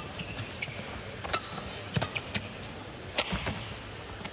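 Badminton rackets striking a shuttlecock in a rally: several sharp hits, roughly a second apart, with short squeaks of shoes on the court between them.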